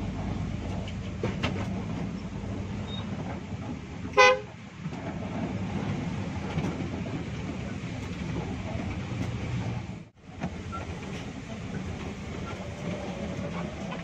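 Cabin noise inside a moving Hino RG1J bus: steady engine and road rumble. About four seconds in, a vehicle horn gives one short, loud toot. The sound drops out for a moment about ten seconds in.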